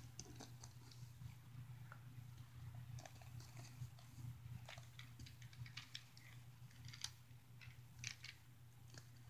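Faint, scattered clicks and taps of small plastic toy figures and playset pieces being handled and set down on carpet, over a low steady hum.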